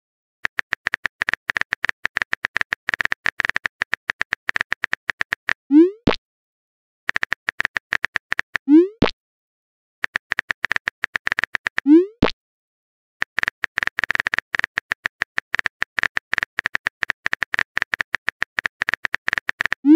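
Phone-keyboard typing sound effect: four bursts of rapid taps. Each burst ends with a short rising pop as a chat message is sent.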